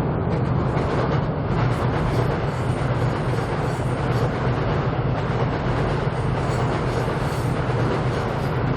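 A Seoul Subway Line 7 train running across Cheongdam Bridge, heard from beneath the bridge: a steady, loud rolling sound of wheels on rails with a strong low hum.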